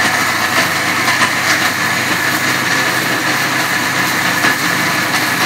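Electric mixer grinder running steadily at full speed, its steel jar grinding recheado masala (spices, garlic and tamarind in vinegar) into a paste: a loud, even motor whirr with a steady high whine.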